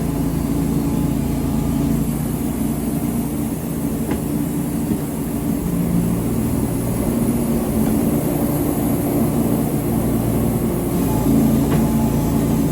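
An engine running steadily at working speed, its note shifting slightly now and then, with a faint click or two.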